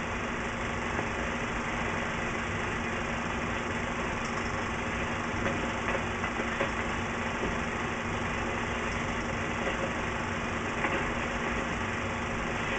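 Steady hiss and a low hum of an old film soundtrack, with a few faint ticks and crackles.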